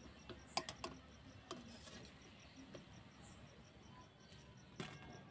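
Wire skimmer clinking and scraping against an iron kadai as fried palm fritters are lifted out: a few light clicks and taps, the sharpest about half a second in and another near the end. Behind it, insects chirp faintly in a steady pulse.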